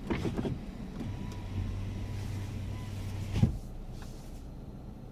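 Dodge Grand Caravan's electric power window motor running for about two and a half seconds, a steady hum that ends in a thump as the glass closes.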